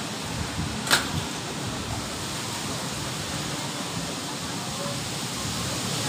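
Strong storm wind blowing through trees, a steady noisy rush, with a single sharp click about a second in.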